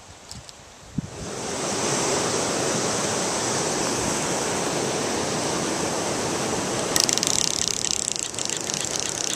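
River water rushing over rapids, a steady hiss that swells in about a second after a single click. A louder crackling hiss joins in about seven seconds in.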